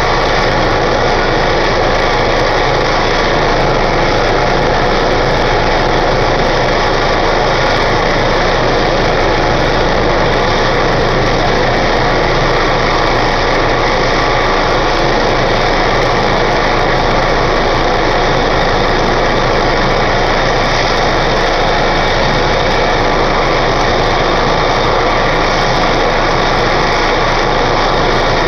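Medical helicopter's turbine engines and rotor running steadily while it sits on the ground, readied for takeoff.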